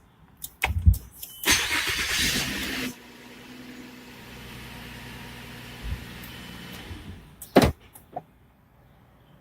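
A 2010 Mazda CX-9's starter cranks loudly for about a second and a half, and the V6 engine catches and settles into a steady cold idle. A sharp click comes near the end.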